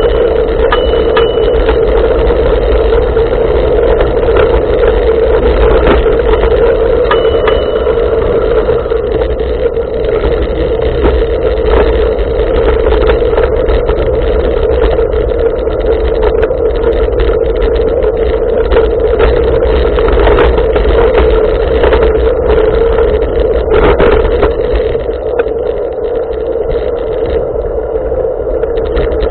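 Steady rush of wind and tyre rumble from a bicycle riding along a paved path, picked up by a camera mounted on the handlebars.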